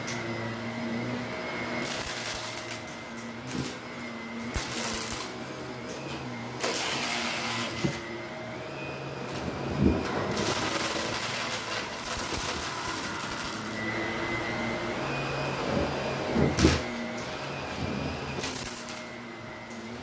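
Shark Navigator upright vacuum running on carpet, a steady motor tone with a whine, while it sucks up loose fluff stuffing and small plastic bits. Bursts of rushing hiss come every few seconds as the floor head is pushed in strokes, the longest about halfway through.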